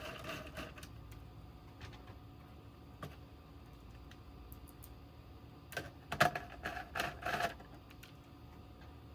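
Light scattered clicks, then a quick run of rattling clicks about six to seven and a half seconds in, from small screws being put into the oscilloscope's circuit board and chassis with a screwdriver.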